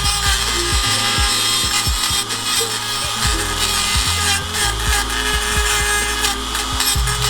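Dremel 4000 rotary tool running at speed with a steady whine, grinding down the cracked end of a steel exhaust pipe so that it stops rattling. Background music with a low, changing bassline plays under it.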